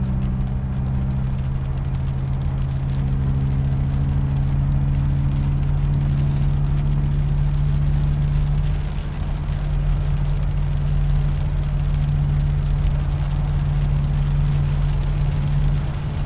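Car engine droning steadily, heard inside the cabin while driving on a rain-soaked road, over a steady hiss of rain and wet tyres. The drone eases briefly about nine seconds in.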